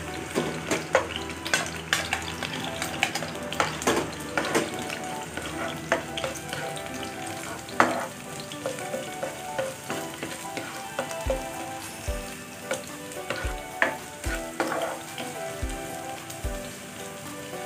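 Minced garlic frying in hot oil in a nonstick pan, sizzling steadily while a spatula stirs it with frequent sharp clicks and scrapes against the pan; the garlic is being browned.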